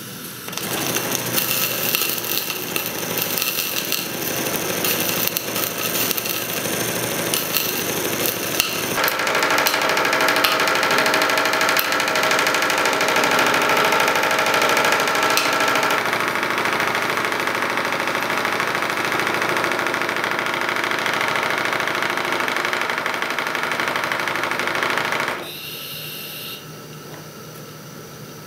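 Small live-steam model steam engine (single-cylinder, 19 x 20 mm bore and stroke, slide valve with Stephenson reversing gear) running fast with a rapid, even mechanical beat. Its sound shifts a couple of times and drops quieter near the end.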